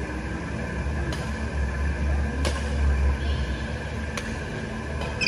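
Badminton shuttlecock struck by rackets during a doubles rally, sharp single hits about every second and a half, with a brief shoe squeak on the court. A steady low hum runs underneath.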